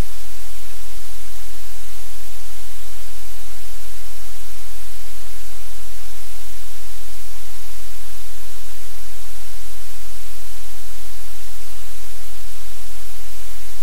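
Loud, steady hiss like static, with a low hum underneath; nothing else stands out from it.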